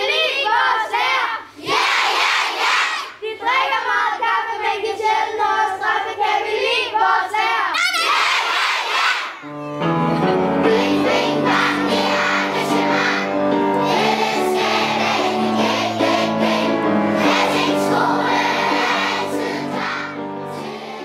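A large group of schoolchildren singing together. About ten seconds in, the sound changes and steady instrumental backing with low notes runs under the voices. The singing fades out at the end.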